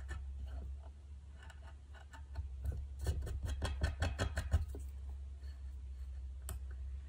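Hobby knife blade scoring and cutting through old veneer in short scratchy strokes, with a rapid run of sharp clicks about three seconds in that lasts a second and a half. A steady low hum runs underneath.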